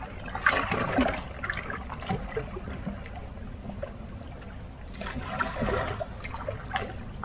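Water lapping and splashing against shoreline rocks, with two louder washes: one about half a second in and one about five seconds in.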